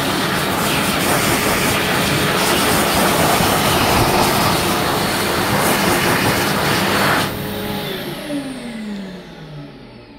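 Kangarillo HDK1000 high-speed hand dryer running with a loud, steady rush of air. About seven seconds in it cuts off and its motor winds down with a falling whine.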